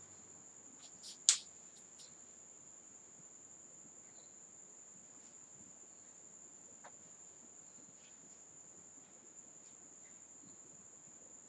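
Faint steady high-pitched tone throughout, with a few light clicks about a second in, one sharper than the rest.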